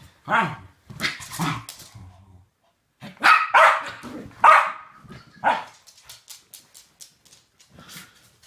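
West Highland Terrier barking in play: a run of short, sharp barks, some in quick pairs, that stops about five and a half seconds in and leaves only faint ticks.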